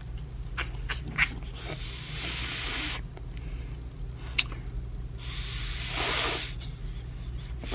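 A person sucking a fizzy sour hard candy close to the microphone: wet mouth clicks and smacks, with two longer hissing breaths, one about two seconds in and one about five seconds in.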